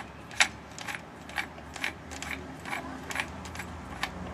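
A hammer tapping on a ceiling fan's metal parts to knock a stuck piece loose: sharp metallic taps about twice a second, the loudest about half a second in.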